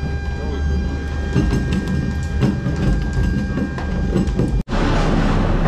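Metallic clicks and rattles as a wheeled helicopter is rolled on its tow bar across the metal floor grating of an aircraft cargo hold, over a steady low hum and a thin whine. The sound cuts off suddenly near the end and gives way to a different steady rumble.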